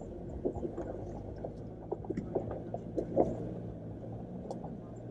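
Jeep Wrangler JL's engine running steadily at low revs while crawling over a rough offroad trail, heard inside the cabin, with scattered knocks and rattles, the sharpest a little past three seconds in.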